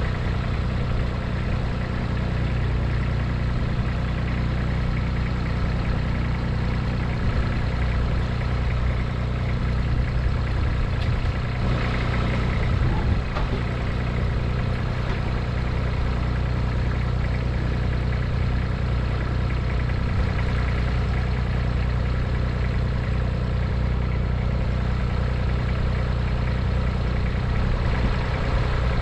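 Compact tractor's engine idling steadily.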